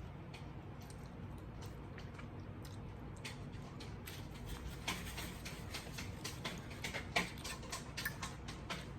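Close-up eating sounds: wet clicks and smacks of sucking and chewing chicken adobo off small bones, sparse at first and coming thick from about three seconds in.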